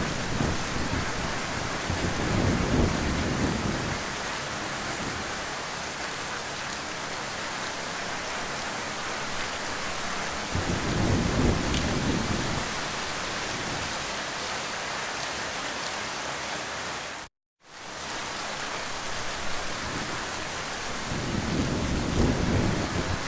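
Heavy rain pouring with a steady hiss, with low rolls of thunder swelling and fading three times: about two seconds in, about eleven seconds in, and near the end. The sound cuts out completely for a split second about seventeen seconds in.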